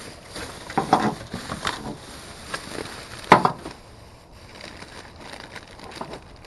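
Rummaging through trash in a dumpster: bags and loose objects rustling and knocking, with one sharp knock a little past three seconds in.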